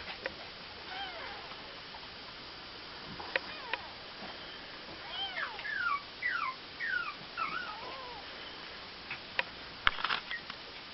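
Newborn Persian and exotic kittens mewing: a faint call about a second in, then a run of short, high, falling squeaks in the middle. A few sharp clicks come near the end.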